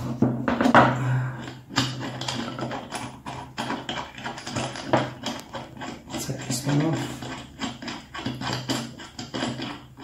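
Steel bolt and washer clicking and clinking against each other and the plywood as the bolt is undone from a tee nut to take the joint apart, many small sharp metal clicks throughout.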